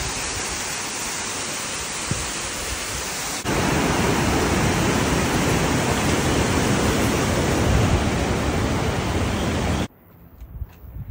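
Steady, loud rushing water with no pitch, like a mountain river or waterfall. It jumps louder at a cut about a third of the way in, then stops abruptly about a second before the end.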